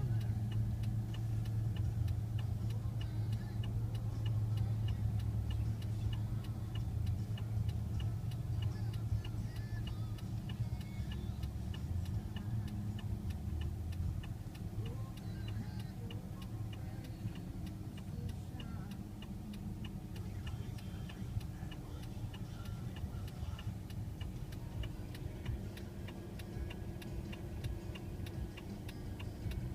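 A vehicle engine running with a steady low hum, under a regular light ticking at about two ticks a second. The hum eases off a little after the middle.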